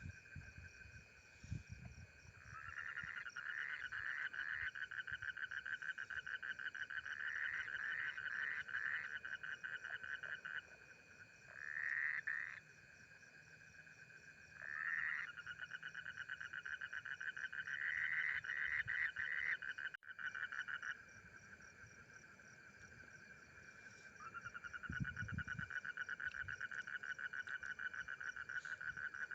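Frogs calling in long, fast pulsing trills that run for several seconds each, with a couple of short, louder bursts in between. A thinner, higher pulsing chorus runs underneath, and there are a few low thumps near the start and about 25 seconds in.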